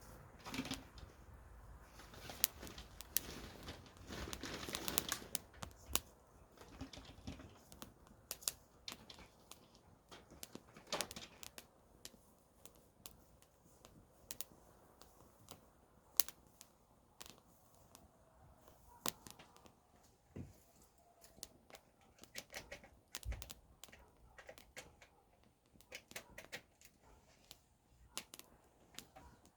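Wood campfire crackling, with irregular sharp pops and snaps. There is a denser, louder stretch of crackle and hiss a few seconds in.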